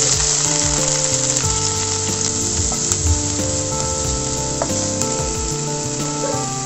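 Chopped onion and green chilli sizzling in hot oil in a nonstick frying pan, stirred around with a wooden spatula.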